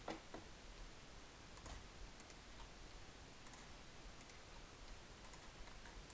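Scattered faint clicks of a computer mouse and keyboard over quiet room hiss, as mesh rings are Alt-clicked and scaled.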